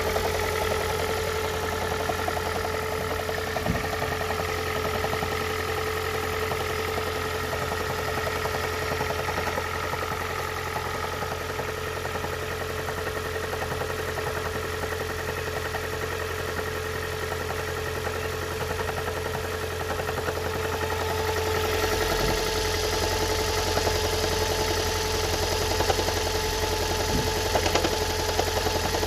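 Engine idling steadily. About 22 seconds in, its sound grows louder and fuller.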